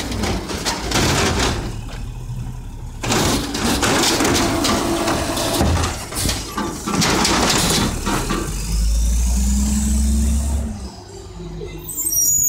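Mack LE refuse truck with an Amrep automated side loader emptying a cart: the lift arm's hydraulics and the cart being shaken out into the hopper come as several noisy bursts over the first eight seconds. The diesel engine then revs with a faint rising whine as the truck moves off.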